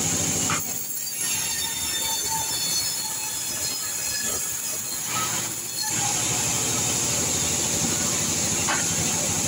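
T.36 sawmill band saw running and ripping a plank of kecapi (santol) wood, a steady high-pitched whine over the machine's hum. The whine drops away about half a second in and comes back near six seconds.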